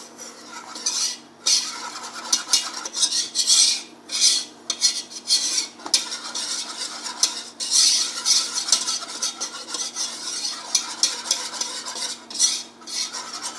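Wire whisk stirring flour into melted butter in a non-stick pot, its wires scraping over the pot bottom in quick, irregular strokes as the roux is mixed.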